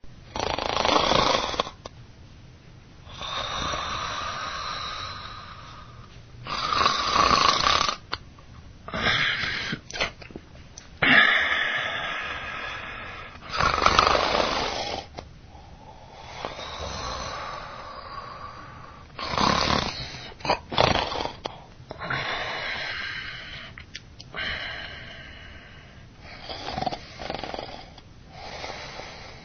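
A baby snoring: noisy snoring breaths that come every two to three seconds, some louder and harsher than others.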